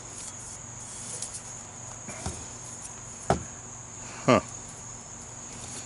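A few knocks and clanks of the StoveTec FireFly lantern-cookstove's metal parts being handled, the two loudest about three and four seconds in, over a steady high-pitched drone in the background.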